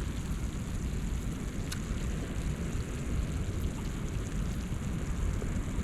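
Wind buffeting the microphone: a steady low rumble with a faint hiss above it, and one faint click about two seconds in.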